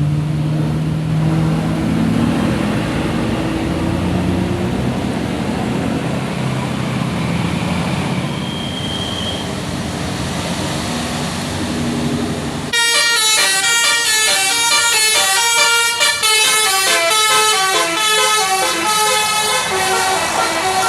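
A tour bus's engine and road noise as it moves past. About thirteen seconds in, the sound switches abruptly to a telolet basuri musical air horn playing a quick melody of stepped, changing notes.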